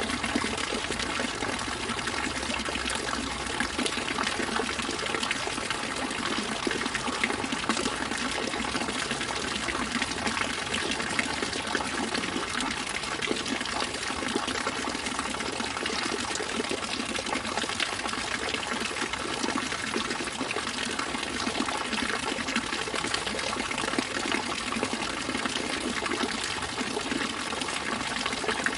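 Water fountain splashing and trickling steadily into its basin, an even, continuous patter of falling water.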